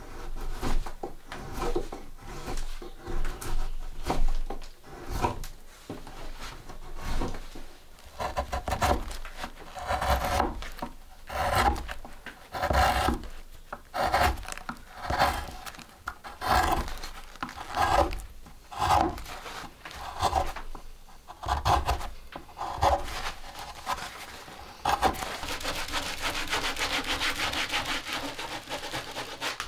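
Rhythmic rasping strokes, about one every second or so. Near the end they give way to a steady, fast scratching.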